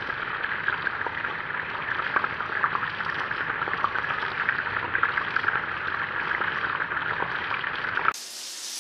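Meatballs frying in hot oil: a steady sizzle with dense fine crackling. A little before the end it cuts to a quieter, thinner hiss.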